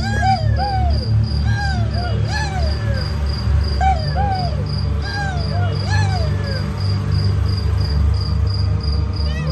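Dog barking in short rising-and-falling yelps, in small groups, over crickets chirping in a steady high pulse and a low steady hum.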